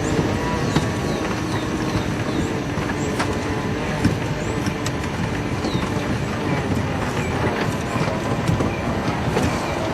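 Game-drive vehicle's engine running as it drives along a dirt track, a steady low rumble with knocks and rattles. A few short high chirps sound over it.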